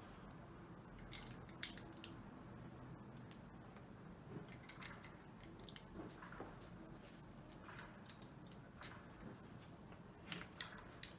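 Faint handling of plastic LEGO bricks as they are picked up and pressed together, with a few short sharp clicks scattered through, two near the start and two near the end.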